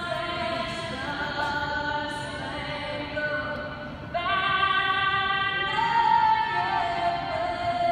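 Music with singing: a voice holding long, steady notes that step from pitch to pitch, jumping to higher, louder notes about four seconds in.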